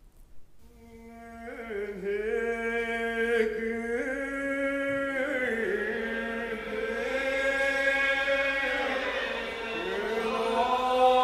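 Unaccompanied Gaelic psalm singing: a slow melody of long held notes that slide from one pitch to the next. It enters softly about half a second in and swells.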